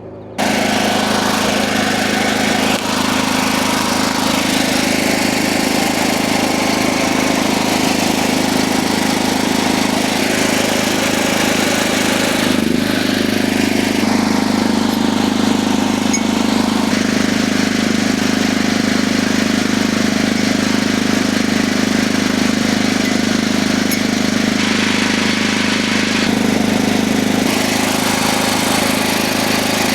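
Backup generator's engine running steadily with a constant hum, coming in abruptly just under half a second in.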